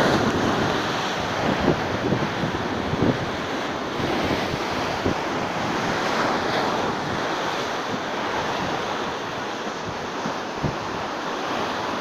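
Rough, stormy sea surging and breaking against a seawall directly below, with a steady rush of churning surf. Wind gusts buffet the microphone throughout.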